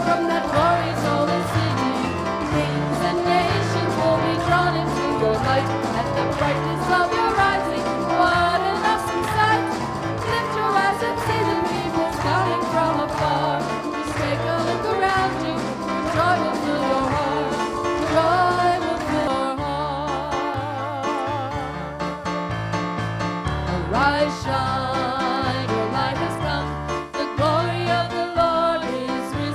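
Live worship band music with singing over a steady bass line; about two-thirds of the way through, the accompaniment thins to held, wavering notes.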